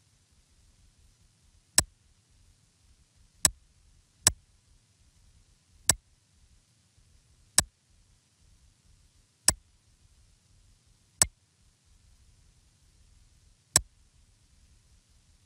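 Eight sharp, single computer mouse clicks at uneven intervals of one to two and a half seconds, over a faint low hiss.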